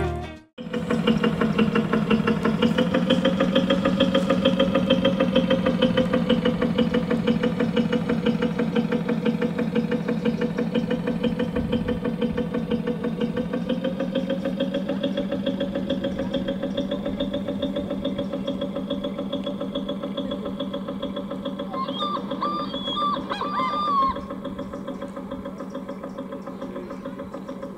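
Sound module in an RC model cutter playing a simulated ship's diesel engine: it comes in about half a second in, picks up briefly, then runs on steadily, slowly fading. Near the end a few short higher-pitched calls sound for about two seconds.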